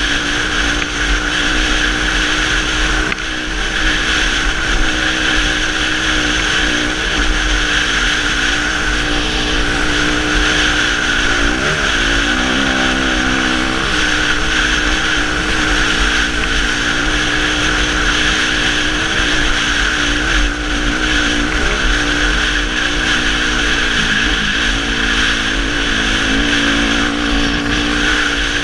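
2006 Suzuki RM-Z250's single-cylinder four-stroke engine running hard at a steady speed, with a few brief dips and recoveries in pitch, the first about twelve seconds in. Constant wind noise runs underneath.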